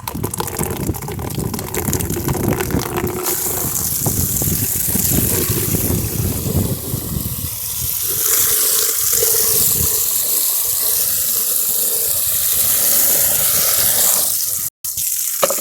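Water rushing and splashing inside a Sital SEI dishwasher during a test fill and wash. It is steady, with deeper churning giving way to a higher hiss about eight seconds in, and it cuts out for an instant near the end.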